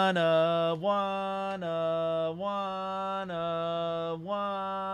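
A man's voice holding a long, steady chanted note, with a slight dip about once a second. It is the drawn-out build-up before calling out a one-of-one card.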